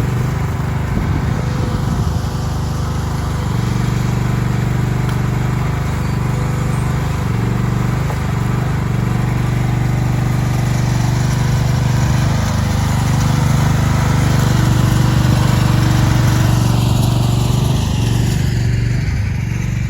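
Engine of a working machine running steadily, a little louder in the second half.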